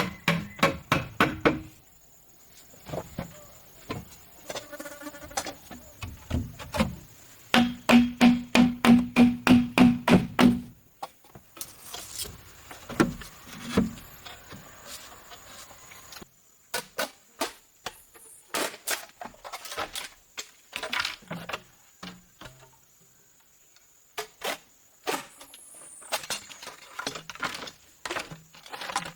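Rapid blows on hollow bamboo, each a hollow pitched knock, coming in fast runs of about four or five a second. Between the runs, scattered single knocks follow.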